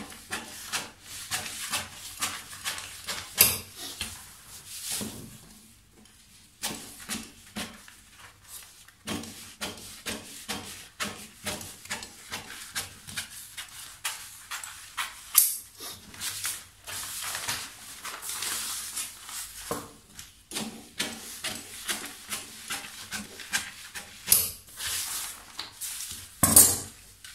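Large scissors cutting through paper pattern sheets in a long run of quick snips, pausing now and then. Near the end the cut paper pieces rustle as they are lifted and moved.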